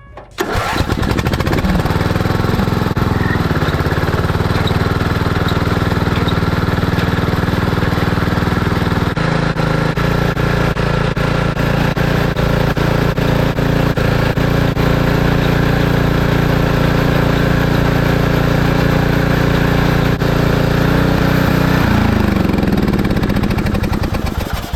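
Small engine of a ride-on vehicle running under way, heard close from on board. It comes in suddenly just after the start, climbs in pitch over the first few seconds, holds a steady drone with a change in pitch about nine seconds in, and slows down near the end.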